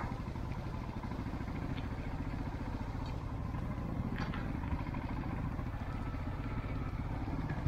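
Royal Enfield single-cylinder motorcycle engine running steadily at low revs while the bike rolls slowly or stands.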